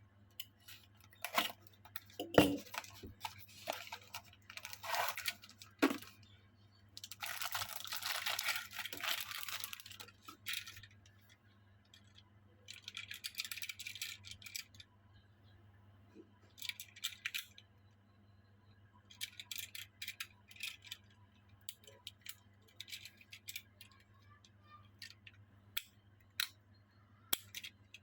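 Toy car packaging being handled and opened by hand: several bursts of rustling and tearing, with scattered sharp clicks and taps between them.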